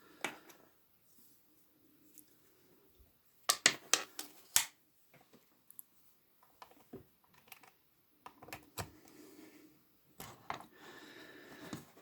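Hands handling a magnetic USB charging cable: scattered sharp clicks and taps, loudest in a quick run of clicks about three and a half to four and a half seconds in.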